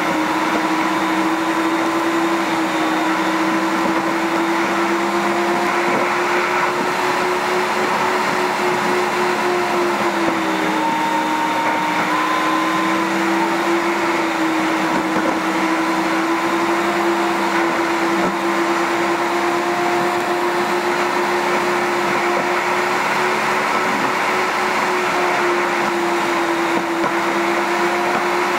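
Steady drone of a car driving, heard from inside the cabin: engine hum and road noise. The hum's pitch shifts slightly now and then, notably dipping about ten seconds in.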